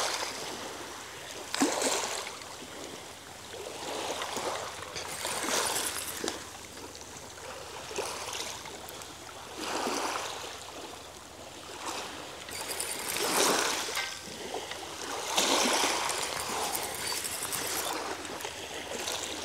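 Small waves washing in over a shingle beach, each wash swelling to a rush and fading away again every few seconds.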